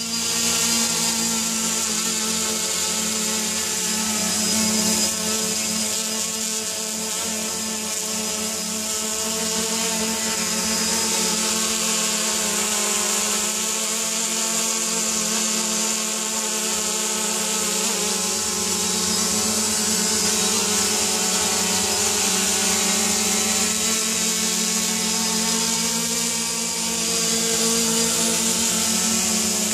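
Brushless motors and propellers of a 3D-printed quadcopter hovering, a steady buzzing whine with a rushing hiss of prop wash, swelling slightly now and then.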